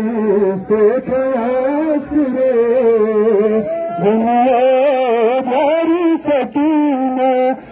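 A male voice chanting a noha, a Shia mourning lament, in long held lines that waver and bend in pitch, with a short break near the end.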